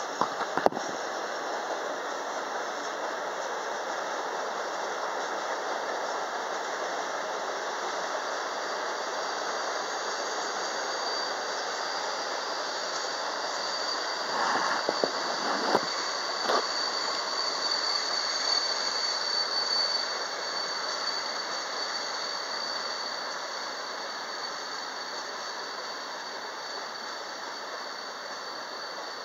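Freight train rolling past, its wagon wheels giving a high, steady screech that is strongest about halfway through, over the continuous rumble and hiss of wheels on the rails. A few sharp knocks come near the middle.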